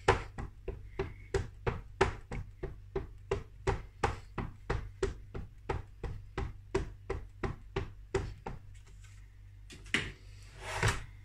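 A StazOn ink pad being dabbed over and over onto a rubber stamp to ink it, making quick soft knocks about three times a second. The dabbing stops about eight and a half seconds in, and two louder knocks follow near the end.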